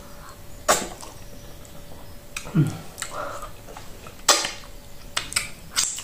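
Wet mouth smacks and clicks from eating Quaker-oats fufu with peanut butter soup by hand and sucking the soup off the fingers: about six sharp, wet smacks, the loudest about four seconds in.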